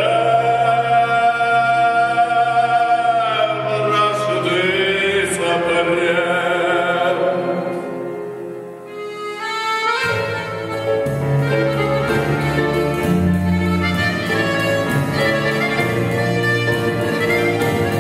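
Live Russian romance sung by a male voice, holding one long note with vibrato, then sliding down through a phrase that fades out. About ten seconds in the full band comes in with a rhythmic accompaniment: accordion, piano, double bass and drums.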